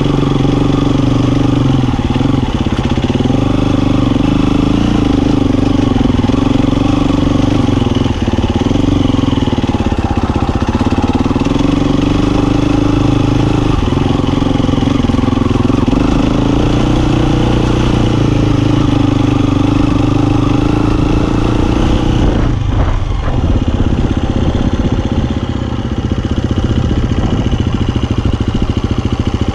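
Husqvarna FE350 four-stroke single-cylinder dirt bike engine running under way, its revs rising and falling every couple of seconds. About three-quarters of the way through the revs drop away and the engine settles to a lower, steadier note.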